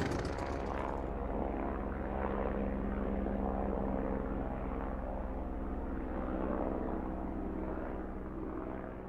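A steady low mechanical drone with an even hum, fading out near the end.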